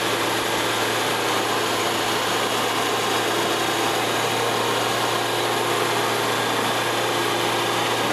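1961 Gallis 310B coal-mine roof bolter running steadily, its dust-suction blower the loudest part: an even, unchanging hum and rush of air.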